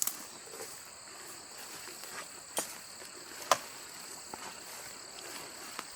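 Crickets chirring steadily in two high, even bands, with a few sharp clicks and snaps scattered through, the loudest about three and a half seconds in.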